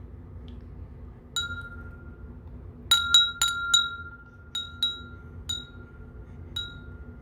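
A small bell struck repeatedly, about nine clear strikes each ringing on at one high pitch. A quick run of four strikes comes about three seconds in, and the rest are spaced out.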